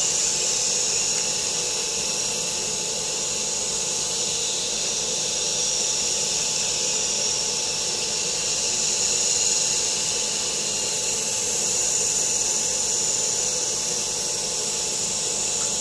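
Propeller-driven LEGO Technic car: a Power Functions electric motor spinning a plastic propeller, a steady whirring with a high airy hiss over the motor's whine.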